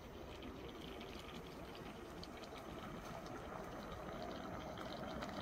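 Pot of spicy jeongol stew bubbling on a camp stove: a soft, steady hiss with scattered small pops.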